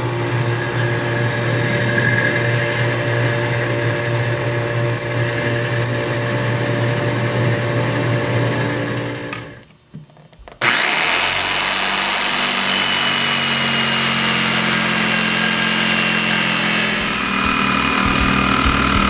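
South Bend lathe running steadily while a drill bit mills a slot into an aluminum bar, with a brief high squeal of the cut about halfway through. It fades out, and about a second later a Skil jigsaw starts with a steady buzz, sawing through the aluminum bar.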